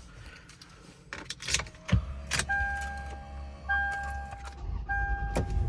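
Keys rattle in the ignition, then the 2004 Lexus GX470's 4.7-litre V8 starts about two seconds in and settles into a steady low idle. A dashboard warning chime repeats about once a second over the idle.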